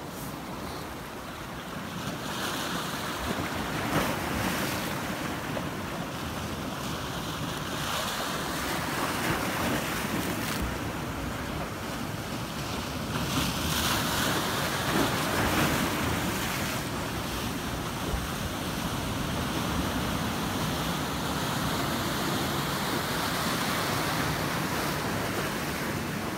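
Ocean surf, with waves breaking and whitewater washing in, swelling louder several times. Wind rumbles on the microphone underneath.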